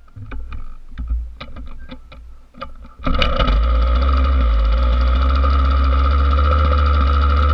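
Rebuilt Yamaha YZ80 single-cylinder two-stroke engine being kicked over with irregular clattering knocks. About three seconds in it fires and runs steadily and loudly after its rebuild for blown crank seals and water pump seal.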